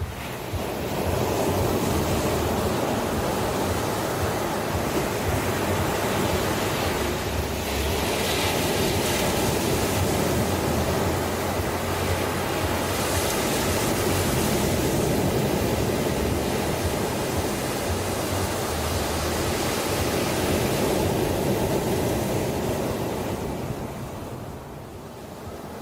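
Ocean surf: waves washing in as a continuous rushing hiss. It swells up just after the start and eases off near the end before building again.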